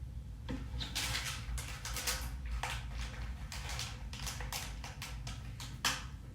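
Vacuum cleaner sucking up small plastic beads: a steady low motor hum under a quick, irregular run of beads clattering and rattling into the nozzle and up the hose.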